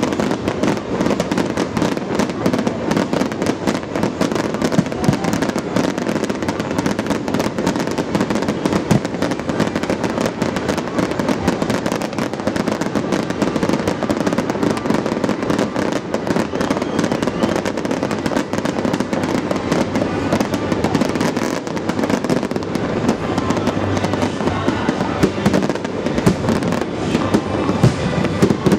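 Aerial fireworks display: shells bursting and crackling one on top of another in a dense, unbroken barrage, with no pause.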